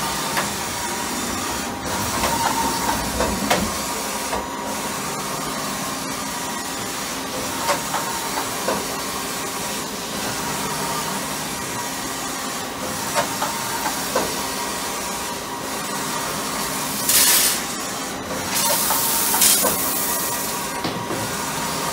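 Takisawa EX-110 CNC lathe running, with a steady hiss of coolant spray inside the guard, a faint steady hum, and scattered light ticks. Two louder bursts of hiss come near the end.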